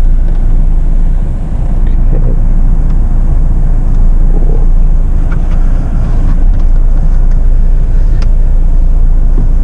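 Jeep Meridian crawling over an off-road trail: a steady low rumble of engine and tyres, with a few faint clicks.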